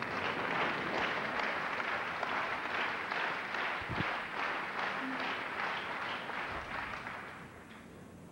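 Tennis crowd applauding after a point, a dense patter of clapping that dies away about seven seconds in.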